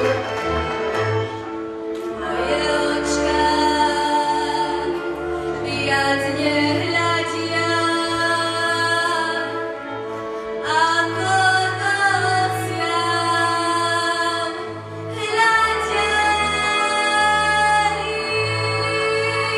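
A girl singing a Slovak folk song solo into a microphone, in long held phrases with vibrato, over a small string band with violin and cello; her voice comes in about two seconds in.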